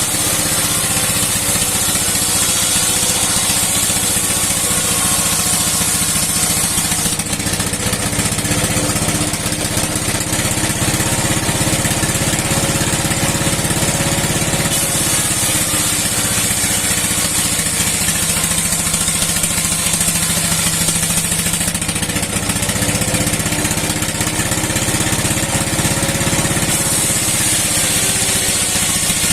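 A 60-year-old engine runs steadily under load, driving a rotating steel saw through wood. A high hiss rises and falls away in stretches of several seconds as the blade cuts.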